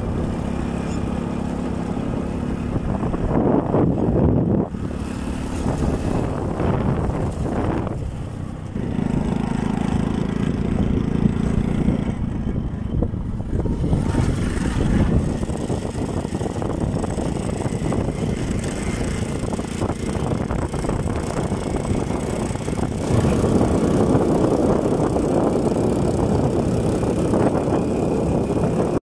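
Engine of a vehicle running as it drives along a dirt track, a steady low drone whose note shifts now and then.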